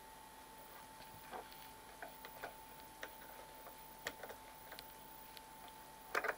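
Latching push-button switches on a Marconi TF2370 spectrum analyzer's front panel clicking as they are pressed: a scatter of soft clicks, then a louder double click near the end. A faint steady tone runs underneath.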